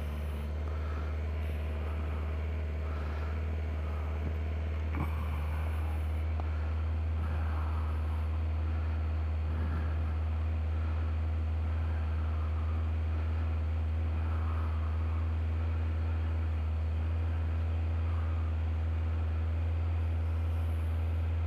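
Honda CBR1100XX Blackbird's inline-four engine idling steadily with the bike standing still, a low even hum that holds its level throughout.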